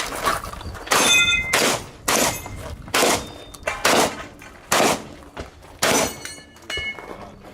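Shotgun shots fired in quick succession, about seven of them, several followed by the ringing clang of steel targets being hit.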